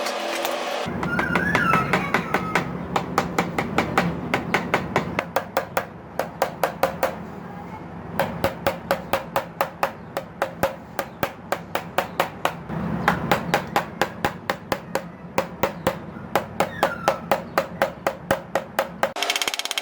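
Rapid, even hammer taps on metal, about five a second, with a couple of short pauses, as in tapping down a radiator's tank tabs.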